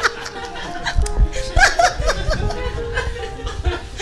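Acoustic guitar picked lightly, a few held single notes, while men laugh and chuckle.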